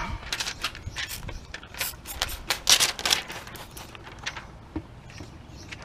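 Handheld trigger spray bottle spritzing water onto a car window and its tint film: a run of quick, short squirts, thickest around the middle, amid small clicks and scrapes of the film being handled.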